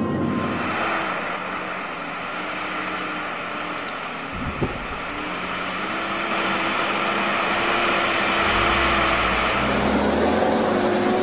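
Car engine running with steady cabin noise, as heard through a dashcam, and a single low thump about four and a half seconds in.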